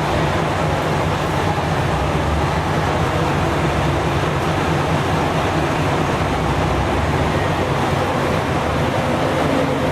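A train at a station, giving a steady low rumble that holds level throughout.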